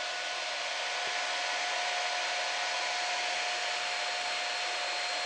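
3D printer running mid-print: a steady whir of its cooling fans, with a constant faint tone.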